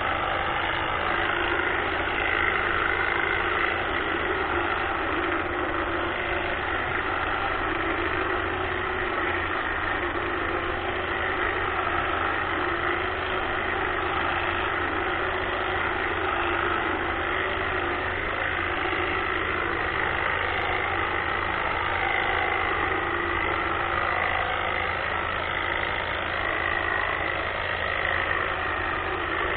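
Greenworks battery-powered hedge trimmer running steadily, its reciprocating blades buzzing as it trims azalea shrubs.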